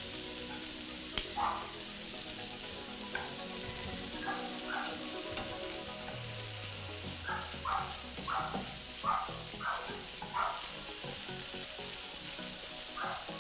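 Matumbo (tripe) frying in a pan with a steady sizzle. Short scraping sounds of stirring come several times over, most of them in the middle, after a single sharp click about a second in.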